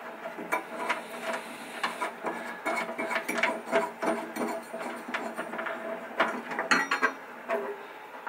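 Thumb screws being turned out by hand from the metal handle bracket on top of a haze machine's steel case: a dense run of small metallic clicks, ticks and rattles.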